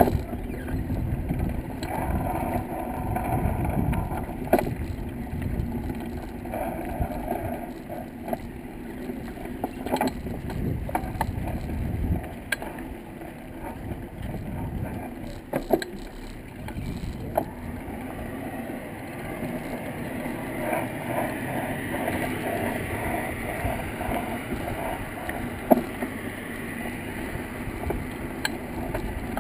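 A steady engine hum with wind buffeting the microphone in gusts for the first twelve seconds or so, and a few short knocks.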